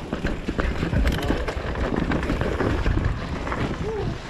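Commencal V4.2 downhill mountain bike descending a rough dirt trail: wind buffeting the action-camera microphone over the rumble of the tyres, with frequent knocks and rattles from the bike over rocks and roots.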